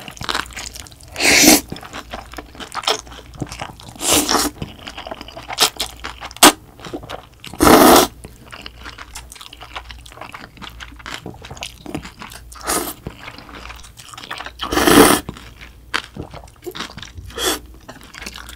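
Close-miked eating of spicy bibim noodles with yeolmu kimchi: steady wet chewing and crunching, with several loud half-second slurps of noodles.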